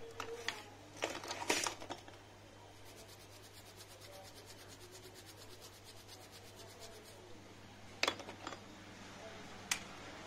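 Small bristle brush scrubbed quickly back and forth over a tiny chip in a palm, cleaning paste off its solder balls, in rapid, even strokes for about four seconds. A few sharp taps come before and after the scrubbing.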